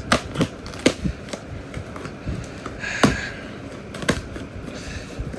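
Handling a cardboard shipping box: scattered taps and clicks, with a louder knock about three seconds in followed by a brief rustle.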